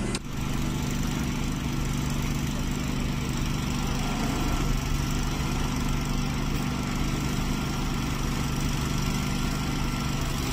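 Fire truck engine idling steadily, a low even hum with a thin steady high tone running under it.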